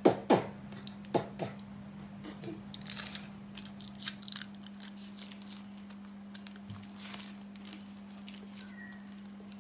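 Small clicks and rustles of wires and a cylindrical battery pack being handled, over a steady low electrical hum. Two short falling chirps stand out in the first second and a half.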